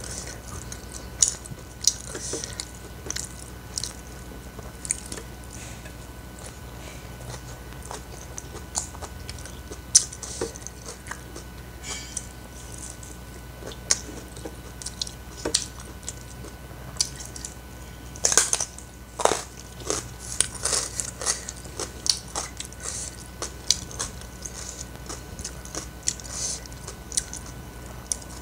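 Close-miked eating: a person chewing and biting food, with irregular crunches and mouth clicks that crowd together about two-thirds of the way through.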